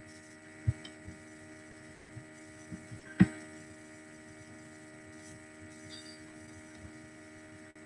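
Steady electrical hum with a stack of fixed tones. A faint click comes early, and a louder sharp click follows about three seconds in.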